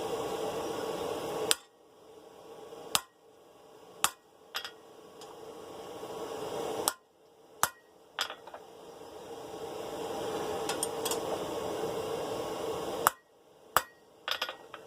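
Blacksmith's hammer striking hot 1/2-inch round steel bar at the anvil, about ten sharp blows in irregular groups, driving a cut into the bar at a marked spot. A steady rushing noise runs underneath and dips after each blow.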